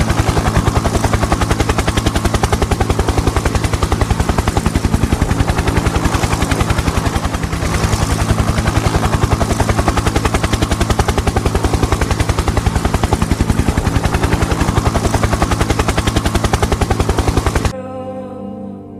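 Electronic soundtrack: a fast, even pulse of sharp strokes over a low steady drone, like rotor or machine-gun fire, cutting off suddenly near the end into softer sustained ambient tones.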